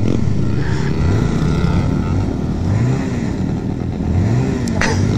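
Motorcycles and a scooter riding past one after another on a dirt track, their engines rising and falling in pitch as each goes by.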